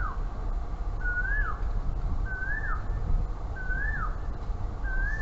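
A bird calling over and over: a short whistle that rises, then drops sharply, about once every 1.3 seconds.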